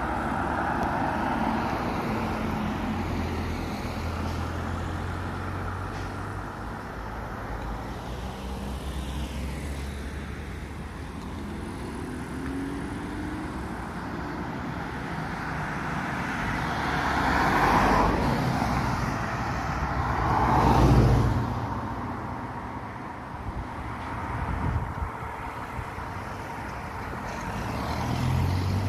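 Road traffic: cars driving past one after another, a steady wash of tyre and engine noise that swells as each car passes close. The loudest pass-bys come a little past halfway, two of them about three seconds apart, with smaller ones near the end.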